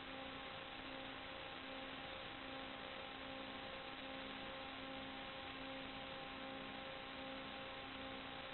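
Steady static hiss with a faint steady electronic whine from several held tones, the lowest one cutting in and out every second or so. This is the empty audio channel of an analog FPV video link.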